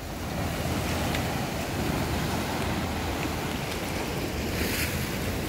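Sea surf breaking and washing against jetty rocks, with wind rumbling on the microphone and a brief louder hiss of spray near the end.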